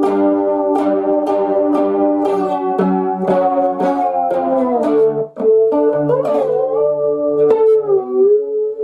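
Cigar box guitar played as a plucked melody over a ringing lower drone. Notes bend and slide down in pitch about halfway through and again near the end.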